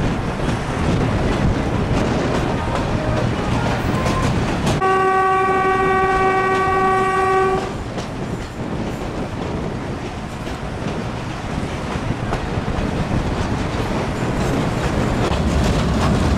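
Train running along the track, a steady rumble and clatter heard from a carriage window. About five seconds in, the train's horn sounds once, a single steady note held for about three seconds.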